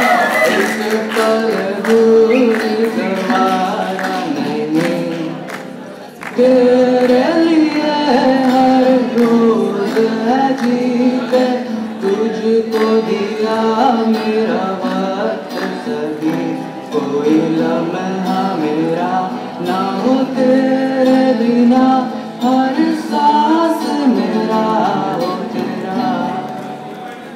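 A man singing a song while playing an acoustic guitar, heard through a stage microphone and PA. The voice dips briefly about six seconds in, then the song carries on.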